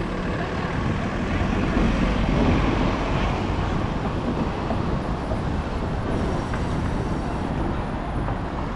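City street traffic: a steady rumble of passing vehicles, swelling a little about two to three seconds in as one passes closer.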